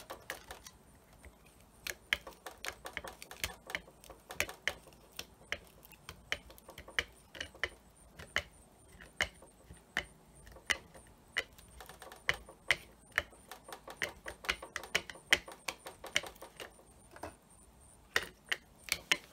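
Wooden-handled burnishing tool rubbed and pressed over collage paper on a wax-coated encaustic panel, giving irregular sharp clicks and ticks, several a second. A faint steady high whine sits underneath.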